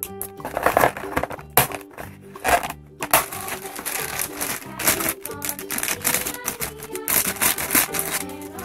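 Light background music with a steady tune, over repeated sharp snips of scissors cutting plastic ties and packaging and the crinkle of a plastic bag.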